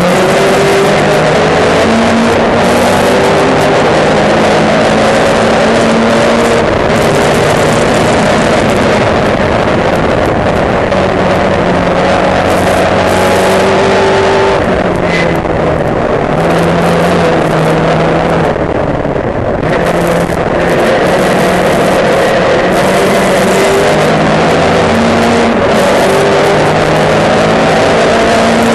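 Racing saloon car's engine heard loud from an onboard camera at race pace, its note climbing again and again through the gears and dropping back at each shift, under heavy wind and road noise. The engine eases off briefly about halfway through, then pulls hard again.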